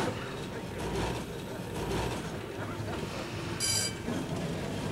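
Low steady background rumble with a faint haze. About three and a half seconds in comes one short, high ringing tone.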